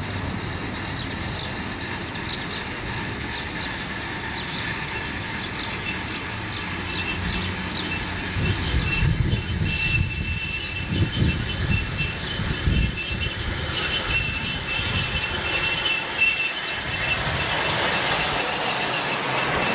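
7.25-inch gauge Clishay beam-engine live steam locomotive running past with a loaded ride car: a light, regular clicking of wheels over the track at about two a second, then from about ten seconds in a steady high wheel squeal, with low rumbling in the middle of the passage.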